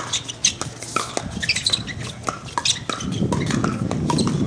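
A quick pickleball rally at the net: paddles hit a hard plastic pickleball in sharp pops, and shoes squeak on the court surface. From about three seconds in, a low background rumble grows louder under the hits.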